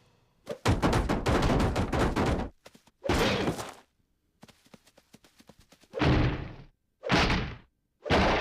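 Cartoon sound effects: a rapid volley of gunfire-like shots lasting about two seconds, then a single blast, a stretch of faint rapid clicking, and three loud blasts about a second apart.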